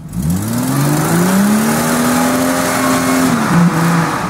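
Jeep Cherokee XJ engine revved hard while its tyres spin and churn through deep mud: the pitch climbs over about a second, holds high, then drops about three seconds in.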